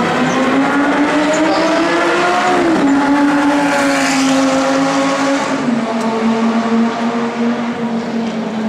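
Lamborghini Gallardo's V10 engine running hard on track, its exhaust note climbing in pitch with a break near three seconds in, then stepping lower about halfway through as the car passes and pulls away.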